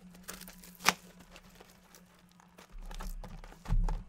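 Plastic wrap being torn and crinkled off a sealed box of 1991 Pro Line Portraits trading cards, with a few sharp crackles in the first second and softer rustling after. A dull thump near the end.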